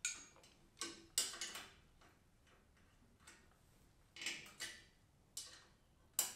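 Faint, irregular sharp metal clicks and ticks from a small hand tool working the bolts of a go-kart axle bearing as it is tightened: about half a dozen, with a quiet pause in the middle.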